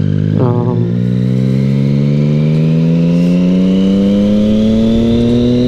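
Motorcycle engine pulling under acceleration, its pitch rising smoothly and evenly as the revs climb in one gear.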